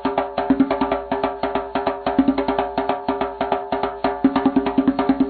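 Intro music with a fast, even percussive beat of woody clicks over sustained pitched tones.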